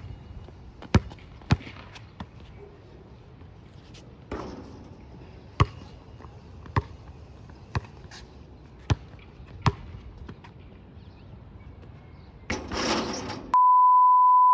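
Basketball dribbled on an outdoor court: single sharp bounces, roughly a second apart and unevenly spaced. Near the end come about a second of static-like hiss and then a loud, steady 1 kHz test tone.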